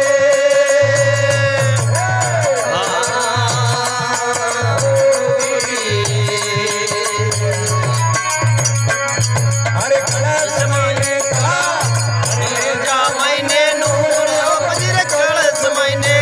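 Live devotional bhajan: a man sings, accompanied by harmonium, over a steady beat of dholak drum strokes.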